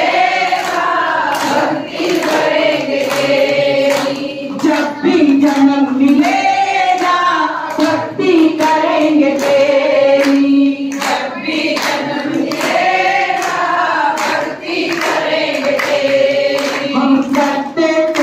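A group of voices singing a Hindi devotional bhajan together, with hand claps keeping a steady beat.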